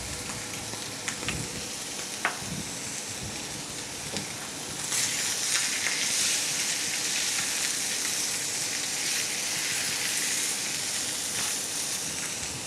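Tied beef fillet searing in hot oil in a frying pan, a steady sizzle as it is browned, which grows louder about five seconds in as the meat is worked with tongs. A few light clicks in the first couple of seconds.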